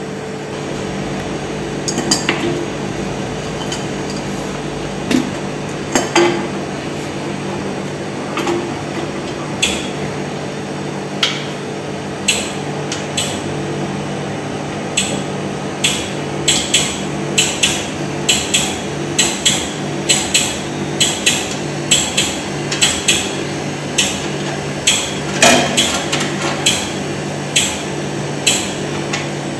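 Sharp metal taps and knocks from work on the mounting base of a refrigeration compressor unit while spacer blocks are fitted to raise it. They come a few at a time at first, then in a regular run of about one to two a second through the second half. A steady machine hum runs underneath.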